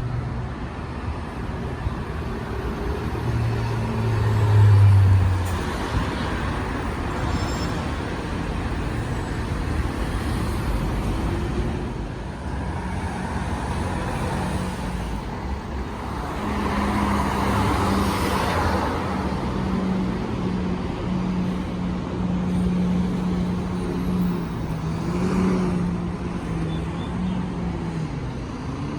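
Road traffic with cars and trucks driving past, their engines droning steadily. A loud engine hum swells about four seconds in, and another vehicle passes with a rush of engine and tyre noise around the middle.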